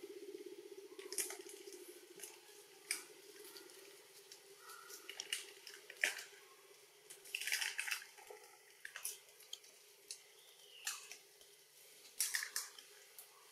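A macaque eating: irregular wet clicks and crackles of chewing and handling food, under a steady low hum that fades out within the first few seconds.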